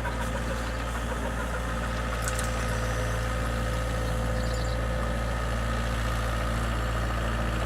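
Diesel engine of a small excavator running steadily at a constant speed, with a low hum and a steady whine above it.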